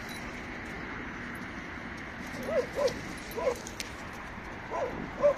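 A dog giving short, high-pitched yips, each rising and falling in pitch, about six of them in small groups from about halfway through, over a steady background hiss.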